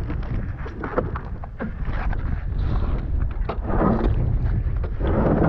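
Wind buffeting the camera microphone, with scattered knocks and two longer bursts of scraping, about four and five seconds in, as the jet ski's hull is rocked and slid on the ice.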